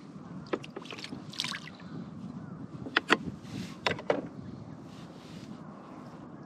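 Water lapping lightly against the hull of a small boat, with a few sharp clicks and knocks scattered through it, the loudest pair about three seconds in.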